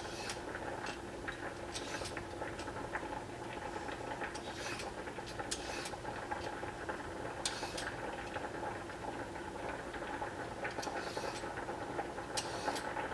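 Vegetable peeler scraping strips off a raw carrot in short, irregular strokes about a second or more apart, over a steady low hum.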